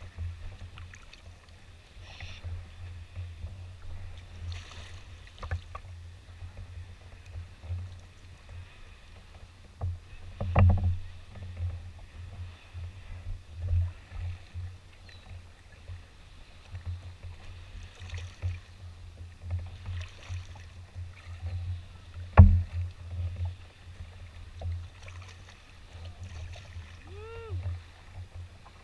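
Canoe being paddled through choppy water, with paddle strokes and water sloshing over a constant, unsteady low rumble. Two sharp knocks, about ten seconds in and again near twenty-two seconds, the second the loudest.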